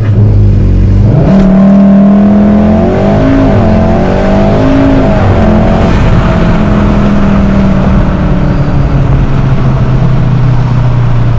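VW Golf R's turbocharged 2.0-litre four-cylinder engine at full throttle on a 0-60 launch run, pitch climbing, dipping and climbing again through its DSG gearbox's upshifts, then settling into a steady loud drone.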